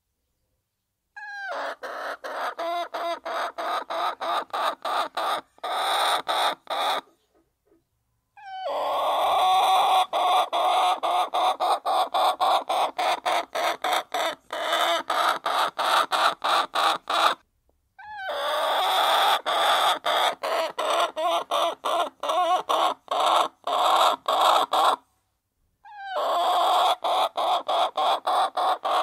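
A flock of hens clucking softly while pecking at feed, with rapid pecking clicks about four a second. The sound stops abruptly into dead silence three times and starts again each time.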